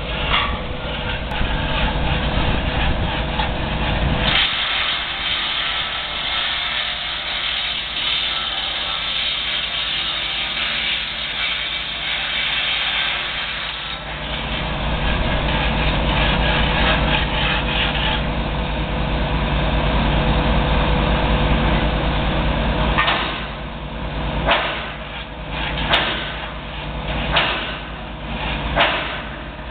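Small excavator's diesel engine running steadily, its load changing a few times, with several sharp knocks near the end.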